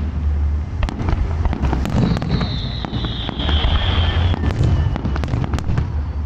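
Aerial fireworks display: a rapid string of bangs and crackles over a continuous low rumble, with a high whistle lasting about two seconds partway through.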